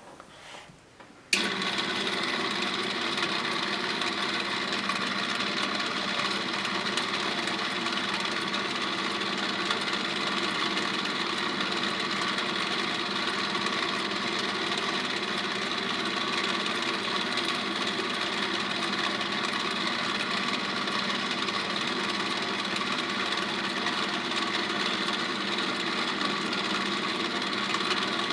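A small motor starts abruptly about a second in and runs with a steady, unchanging mechanical hum.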